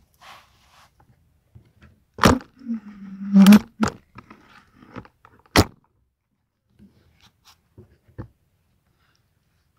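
Handling noise from an air rifle and its scope camera: a few sharp knocks and clicks, the loudest about two and five and a half seconds in, with a short low creak between them.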